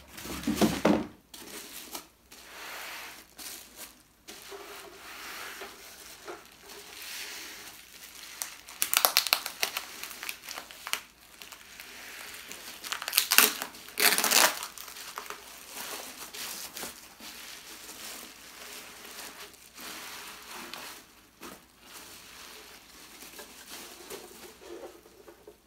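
Bubble wrap crinkling and rustling as it is pulled off and unwrapped by hand, coming in irregular bursts, the loudest two about nine and thirteen seconds in.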